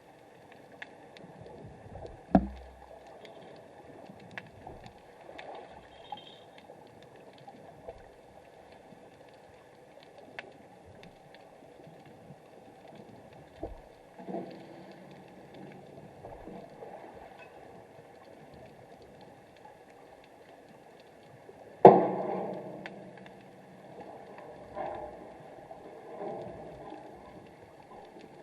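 Underwater recording: a steady water hiss with scattered sharp clicks and crackles. There is a loud knock about two seconds in and a louder thud with a short rumbling tail about 22 seconds in.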